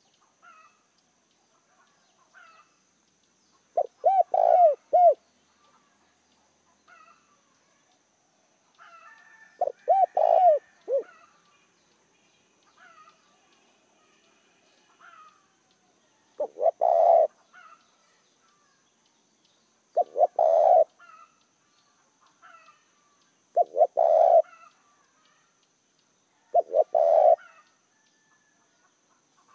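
Spotted dove cooing: six short phrases of two to four low coos, coming every three to four seconds in the second half. Faint chirps of small birds between the phrases.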